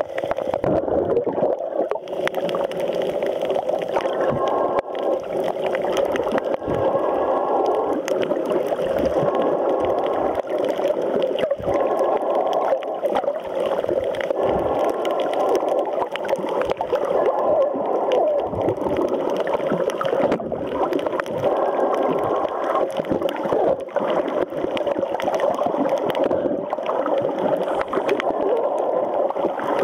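Muffled underwater noise: a steady, dense water sound with scattered faint clicks throughout.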